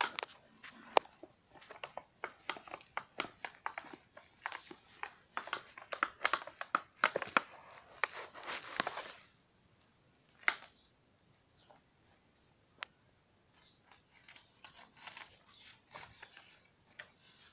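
Bubble wrap and packaging crinkling and rustling as hands handle it in a cardboard box: dense irregular crackling for the first nine seconds or so, a quieter spell with two sharp clicks, then more crinkling near the end.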